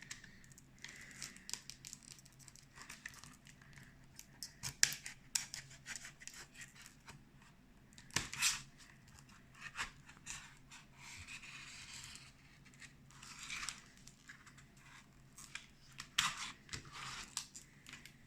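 Plastic retail packaging being struggled open by hand: irregular crinkling, scraping and sharp clicks, with short spells of tearing or cutting.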